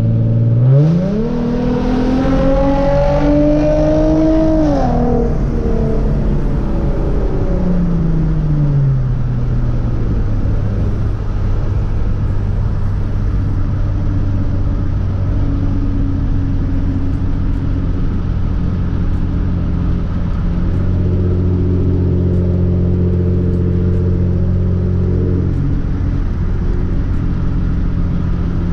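2013 Hyundai Genesis Coupe's 3.8-litre V6 through an ISR race exhaust, heard from inside the cabin. About a second in it pulls hard, its pitch climbing for about four seconds, then falls away off the throttle. It settles into a steady low drone while cruising.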